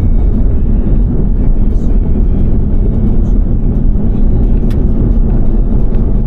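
Steady low rumble of a third-generation Toyota Tacoma driving, road and engine noise with no distinct events.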